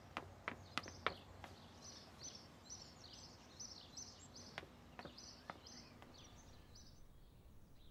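Faint footsteps on stone paving for about the first second and a half, with a bird chirping in short repeated calls, about two a second.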